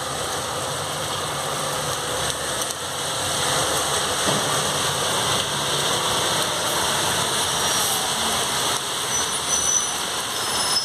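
Heavy rain falling steadily on a flooded street as road traffic passes, with a city bus and then an SUV driving through the standing water.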